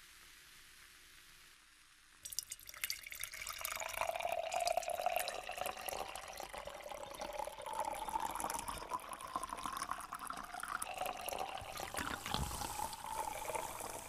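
Shower water spraying and splashing, starting abruptly about two seconds in.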